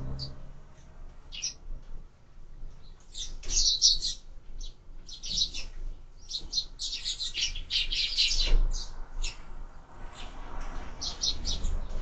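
Sparrows chirping in bursts of rapid, high chirps, busiest through the middle and again near the end, with one dull knock about eight and a half seconds in.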